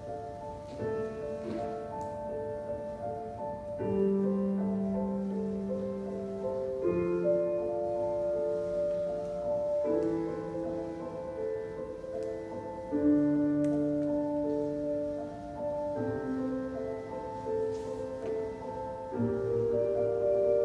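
Slow, calm instrumental music: held chords that change about every three seconds.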